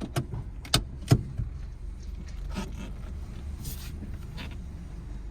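Car creeping slowly forward with a low, steady engine and road rumble. Several sharp clicks or knocks sound in the first second and a half, the loudest about a second in, and a few softer ones follow later.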